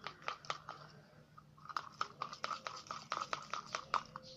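Shampoo slime being worked by hand, giving a quick, irregular run of sticky clicks and wet pops, denser from about a second and a half in.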